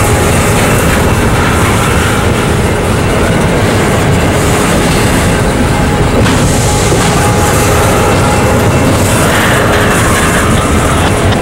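Freight train cars rolling past close by, a loud steady noise of wheels on rail with some clickety-clack.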